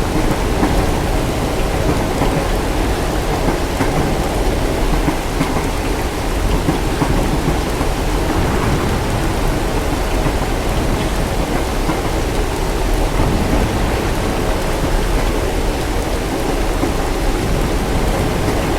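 Steady heavy rain with a continuous low rumble of thunder underneath, as a sleep-ambience soundscape.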